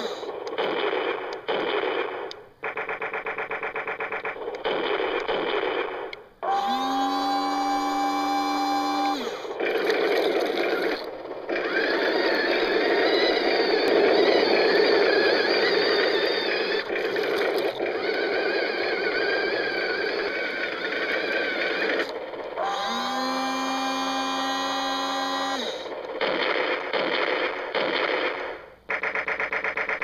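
A remote-control toy tank's electronic engine sound effects, played through a small built-in speaker. They are buzzy and start and stop in segments. Twice a rev-up rises in pitch and holds, and a longer, harsher, noisier stretch runs through the middle.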